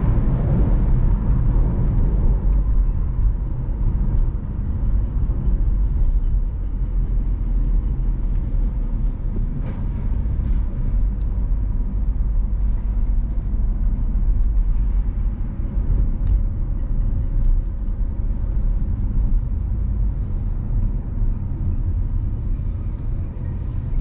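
Car driving on city roads, heard from inside the car: a steady low rumble of engine and tyre noise, with a few faint clicks.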